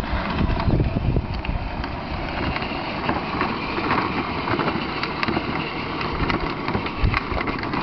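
Battery-powered Barbie ride-on toy Jeep driving over asphalt: its electric drive running and its hard plastic wheels rolling, a steady noisy rumble.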